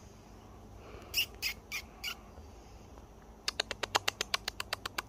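Sharp clicking: four scattered ticks, then, about three and a half seconds in, a rapid run of about fifteen clicks at roughly ten a second.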